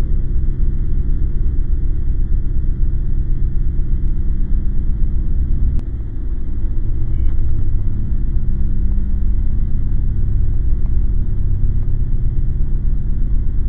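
Loud, steady low rumbling drone, dipping briefly about six seconds in.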